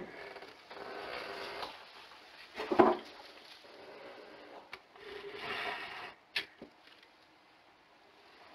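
Close rustling and scraping on an enclosure's Nest camera as it is knocked and shifted, with one loud knock about three seconds in and a few sharp clicks later.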